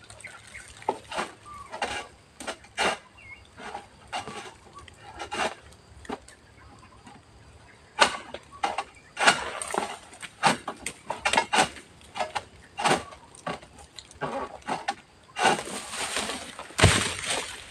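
Oil palm harvesting at a palm crown: irregular sharp cracks and knocks, coming thicker after the middle. Near the end, a louder rustling crash ends in a low thud.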